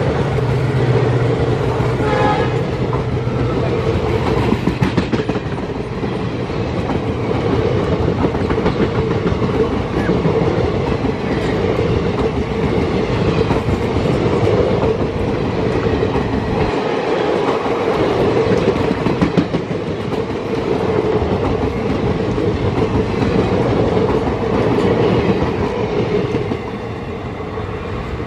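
Passenger coaches of an express train passing close at speed: a steady rail rumble with a rapid clickety-clack of wheels over rail joints, easing off near the end as the train draws away.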